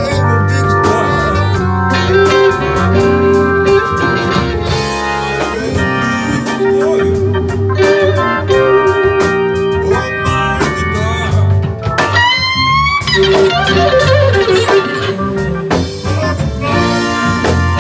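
Live blues band playing: a Stratocaster-style electric guitar over a drum kit, with a sharp upward pitch slide about twelve seconds in.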